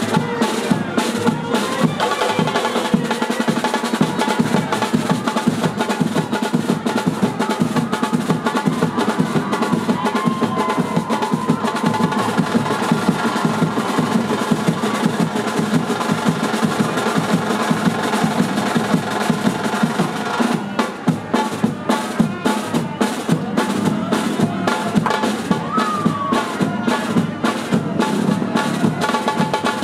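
Music driven by fast, steady drumming, with snare-like rolls and bass drum beats over a sustained band of instruments.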